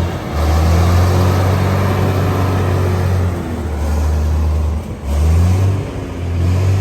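Heavy vehicle engine running loud and low, easing off and picking up again a few times.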